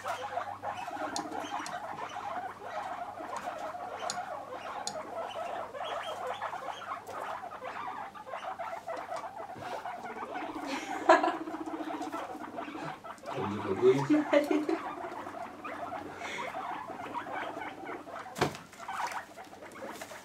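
Guinea pigs calling steadily, with scattered small clicks of movement in the bedding. Several louder, lower calls come about halfway through.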